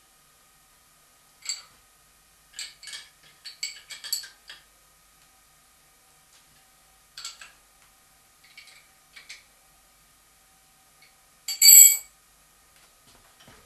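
Steel clamping hardware on a milling table clinking and clanking as nuts, washers and a spanner are handled and a clamp nut is tightened. The clinks come singly and in quick clusters, and the loudest strike near the end rings briefly.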